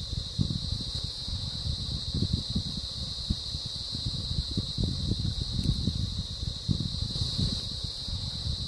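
A steady high-pitched whine or drone that does not change, over irregular low rumbles and thumps from the hand-held camera shaking in the jeep.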